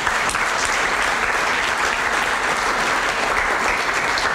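An audience applauding steadily, a dense even patter of many hands clapping.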